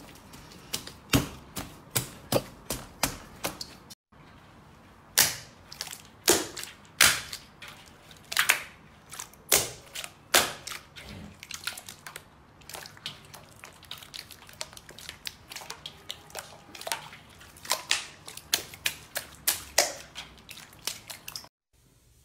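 Slime being pressed and kneaded by hand, its trapped air pockets popping in sharp, irregular clicks about one or two a second, some of them loud.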